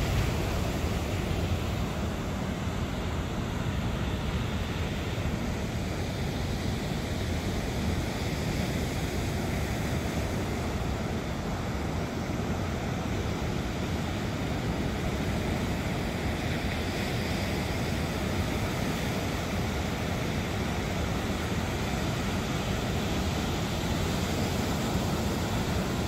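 Rough sea surf breaking and washing up a sandy beach, a steady continuous roar of waves.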